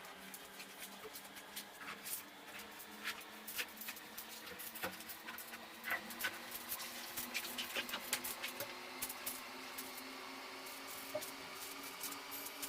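Clothes being washed by hand: scattered wet splashes, slaps and squishing strokes, busier in the second half, over a faint steady low hum.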